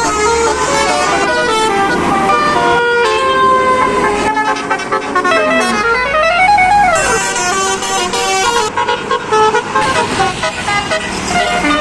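Bus telolet horns, Basuri multi-tone air horns, playing quick stepped tunes, with one tone sliding up and falling back about halfway through.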